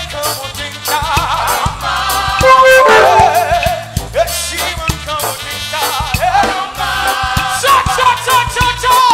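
Live gospel praise music: a lead singer and backing vocalists singing over a band with a drum kit keeping a steady beat.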